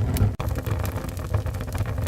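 Wood fire burning in a fireplace: a steady low rumble of flames with frequent sharp crackles and pops from the burning wood, broken by a split-second dropout about a third of a second in.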